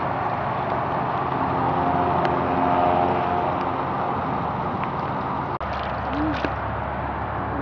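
Steady outdoor background noise with a motor's hum that swells and fades over a couple of seconds, as of a vehicle passing. Near the end there is a single short rising-and-falling tone.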